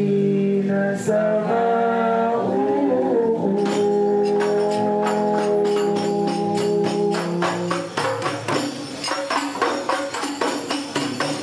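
Hadrah al-Banjari music: held sung notes over a group of hand-struck rebana (terbang) frame drums. The drums come in about three and a half seconds in, and after the voice stops at about eight seconds the drums carry on alone in fast, interlocking strokes.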